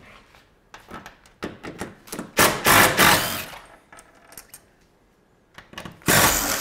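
Tools and metal hardware clicking and clinking while working under the car to remove the battery pack. Two loud bursts about a second long come from a tool, one near the middle and one at the end.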